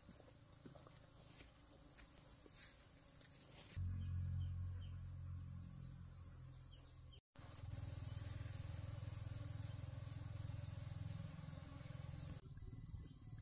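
Insects trilling steadily at a high pitch, with a low rumble coming in about four seconds in and fading away shortly before the end; the sound drops out briefly midway.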